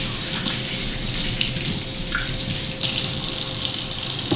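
Kitchen faucet running water into the sink, a steady hiss with a few light clicks.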